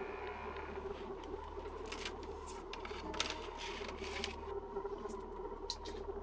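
A steady, low, eerie ambient drone with a sustained tone over a deep hum, typical of a horror-film underscore. Light scrapes and ticks are scattered through the middle, like creaks and shuffles in a wooden attic.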